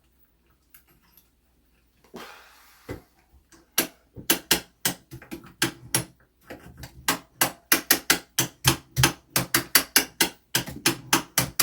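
Ratchet clicking quickly and steadily, about three to four clicks a second, as a clock mainspring is wound up. A short rustle and a single knock come just before the clicking starts.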